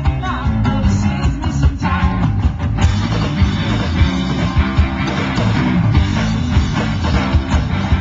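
Live rock band playing through a PA system: electric guitars and a drum kit in a full, steady groove.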